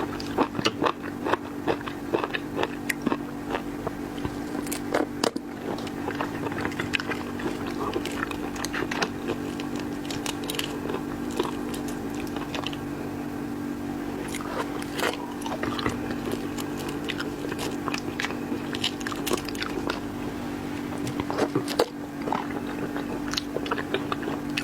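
Close-miked chewing and biting of seafood, with irregular crunches and sharp clicks, denser near the start and near the end, over a steady low hum.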